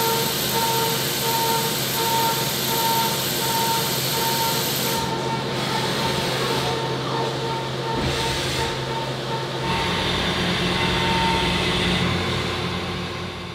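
CNC turning centre running with its spindles and chucks spinning: a steady mechanical whir with a faint tone pulsing about twice a second. It fades out near the end.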